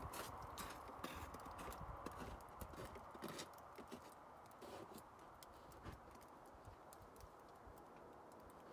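Meltwater dripping from the melting roof snow and icicles: faint, irregular taps, busier in the first few seconds and sparser after.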